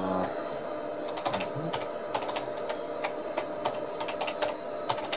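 Keys being typed on a computer keyboard: about a dozen irregular clicks starting about a second in, over a steady background hum.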